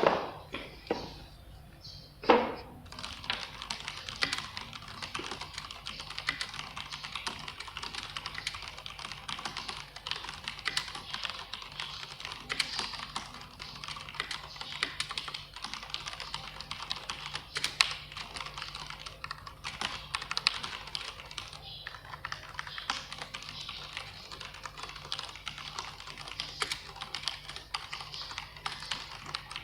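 iKBC KD87 mechanical keyboard with Cherry MX Brown switches being typed on at a steady fast pace: a continuous run of key clacks. A couple of louder knocks come in the first few seconds before the typing settles in.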